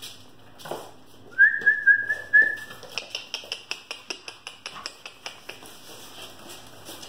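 A high squeal held at one pitch for about a second and a half, pulsing quickly, followed by a run of light, quick taps, about five a second, as a puppy paws at a glass-paned door.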